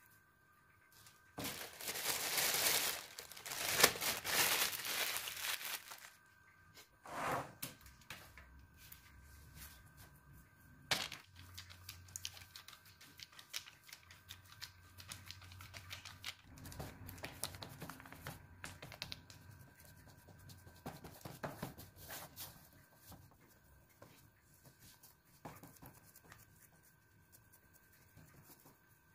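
Crinkling and tearing for a few seconds near the start, then a sharp knock and quieter scattered taps and rubbing as dough is pressed by hand into a metal springform pan.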